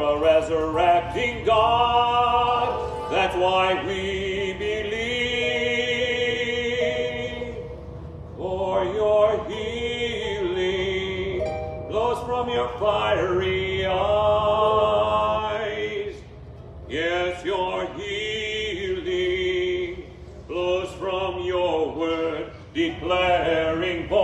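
A man singing in long, operatic-style phrases with held, wavering notes and brief pauses for breath between phrases.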